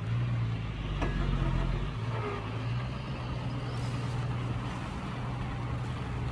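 Heavy diesel engine of earthmoving machinery running steadily, with a deeper, louder rumble for the first two seconds before it settles to an even hum.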